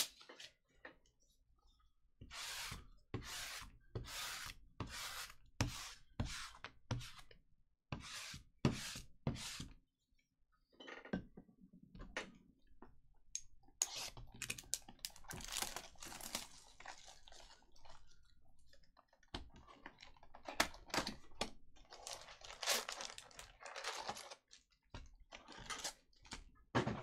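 Trading cards and pack wrappers being handled: a run of short rustles about one a second as cards are flipped and slid, then longer stretches of crinkling and tearing-like rustle.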